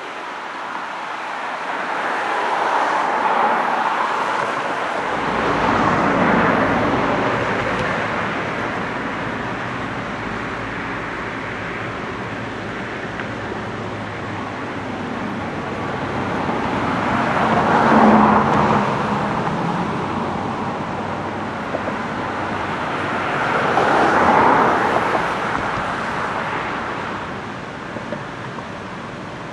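A freight train led by Norfolk Southern diesel locomotives rolling past, a steady rumble of engines and wheels. A deeper engine rumble comes in about five seconds in, and the noise swells several times, loudest about 18 seconds in.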